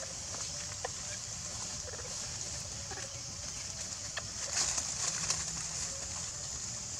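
Outdoor ambience on dry leaf litter: a steady high hiss with scattered short chirps and clicks, and a brief spell of crackling, like dry leaves being shifted, about four and a half seconds in.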